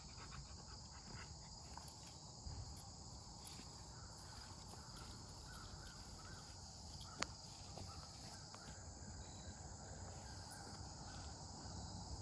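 Faint, steady, high-pitched insect chorus with a low background rumble, broken by one sharp click about seven seconds in.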